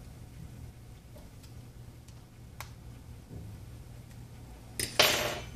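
Prying the cracked front glass off a Samsung Galaxy S5: a few faint ticks, then near the end a sharp snap and a short crackle as the glass pops loose from its softened adhesive.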